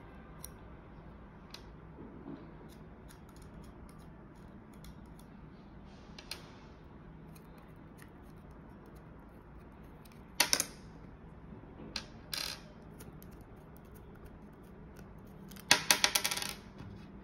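Small metal screws and standoffs being unscrewed by hand from a circuit board and set down on a table: faint fiddling, one sharp metallic clink about ten seconds in, two lighter clicks soon after, and a quick run of clinks near the end.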